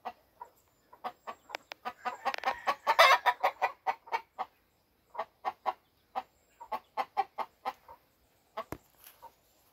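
Yellow pumpkin Kelso game chickens clucking: a string of short, separate clucks, a few a second, busier and louder about two to three seconds in, then sparser.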